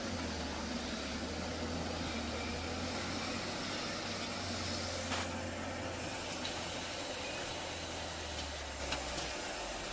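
Heavy machine's engine running steadily, a low drone that shifts slightly in pitch a few times, with a couple of faint clicks.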